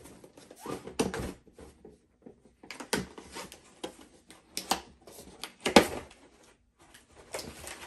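Cardboard box being handled and its flaps pulled open: rustling and scraping cardboard with a few sharp knocks, the loudest near the end.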